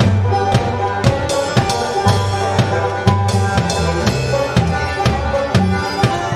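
Skiffle band playing live and acoustic: drum strokes about twice a second over a double bass line that steps from note to note, with a held melody note above.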